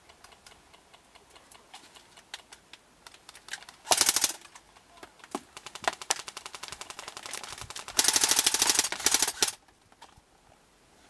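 Airsoft guns firing full-auto at close range: a short burst of rapid clicking shots about four seconds in and a longer burst of about a second and a half near eight seconds, with scattered single shots in between.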